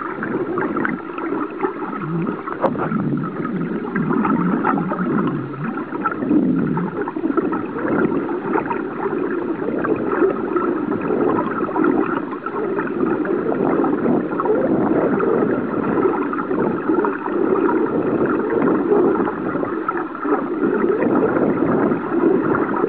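Steady muffled underwater rumble and gurgling of water, with a faint constant drone from a nearby boat.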